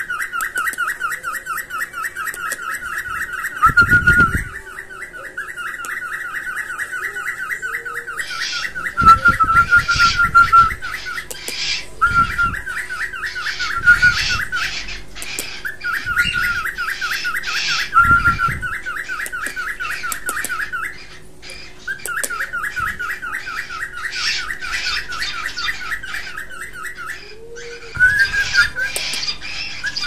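A room of caged pet birds calling: a fast, rapidly repeating trill held in runs of several seconds with short breaks, joined after about eight seconds by higher, quicker chirps. Several dull thumps stand out, the loudest a few seconds after the chirps join in.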